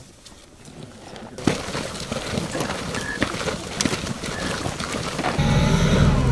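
Quiet at first, then from about a second and a half in a busy run of sharp clicks and knocks over a hiss. Near the end a military vehicle's engine comes in loud with a steady low rumble.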